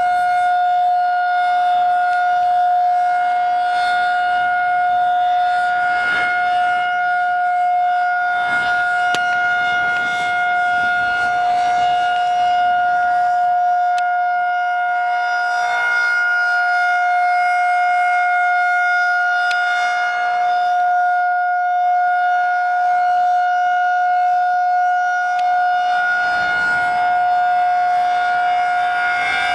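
Outdoor civil defense warning siren sounding a steady, unbroken tone, its pitch holding level and its loudness swelling and fading slightly every few seconds.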